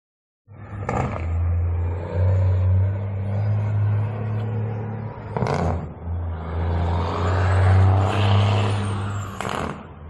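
Freightliner Argosy cab-over semi truck's diesel engine pulling through the gears, starting about half a second in, its note dipping at each shift. Brief sharp bursts come about a second in, about five and a half seconds in and near the end, and a high turbo whine rises and falls in the later seconds.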